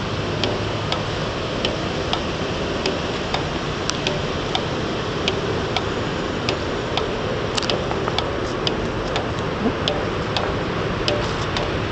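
Pre-1920 Heinrici Stirling hot air engine running, ticking steadily at about two clicks a second over a steady hiss.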